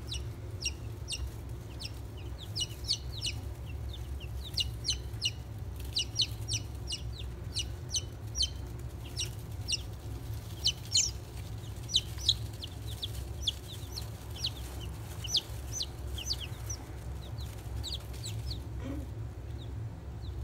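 A group of newly hatched chicks peeping, many short high falling peeps several a second that overlap, over a low steady hum.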